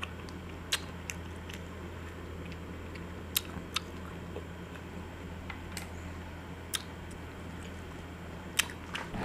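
Close-up eating sounds: short, sharp bites and mouth clicks from chocolate-and-almond-coated ice cream bars being eaten, coming singly at irregular intervals, over a steady low hum.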